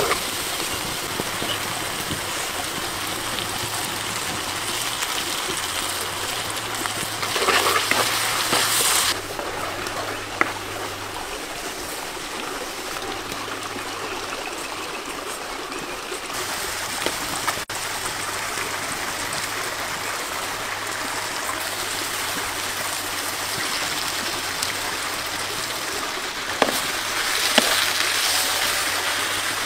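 Chili sauce sizzling and bubbling in a pan over a wood fire: a steady hiss that shifts in level a few times, with a few sharp clicks.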